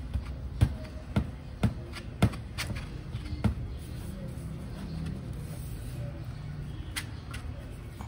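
Metal knocks and clinks as a motorcycle exhaust link pipe is worked by hand into the inlet of a Leo Vince LV One Evo muffler: about six sharp knocks in the first few seconds, then one more near the end.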